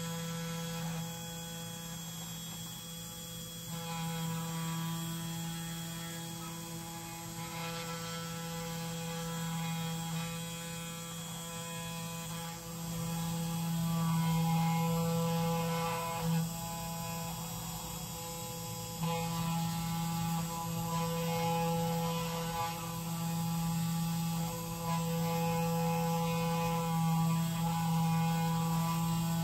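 Spindle motor of a 3018 desktop CNC router running steadily, its V-bit engraving lettering into a fibreglass FR4 circuit board. The hum gets louder and changes in tone a few times as the cut goes on, about 4, 13 and 19 seconds in.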